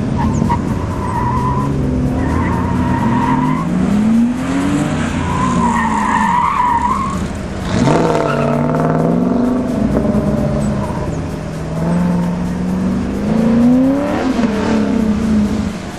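Audi sedan driven hard through tight turns, its engine revving up and dropping off again and again. The tires give several wavering squeals, mostly in the first half.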